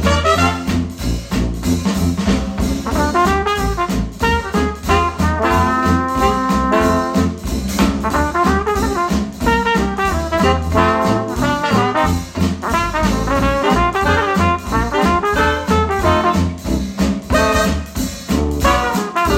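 Upbeat retro jazz instrumental with brass horns over a steady bass line, played back through Polk Audio Reserve R200 bookshelf speakers.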